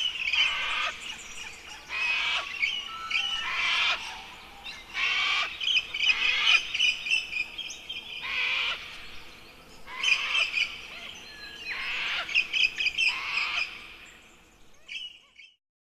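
Birds calling in repeated bursts of chirps and squawks, one phrase every second or two. The calls fade out near the end.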